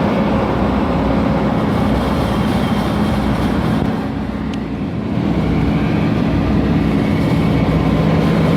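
Combine harvester running steadily under load, its engine drone dipping slightly about four seconds in and then picking up again.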